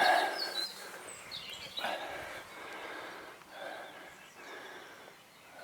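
Birds chirping in the background of an early-morning chorus, with a few soft swells of noise about two seconds apart.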